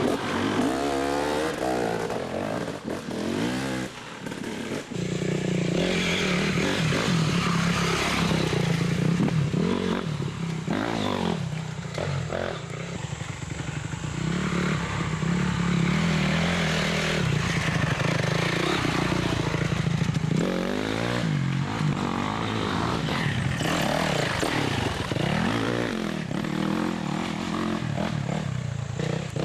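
Dirt bike engines running and revving up and down, their pitch rising and falling again and again, with one held steady for a long stretch in the middle.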